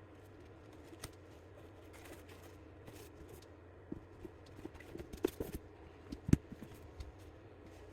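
Scattered light clicks and taps of hard resin doll parts being handled, busier in the second half, with one louder knock about six seconds in, over a steady low hum.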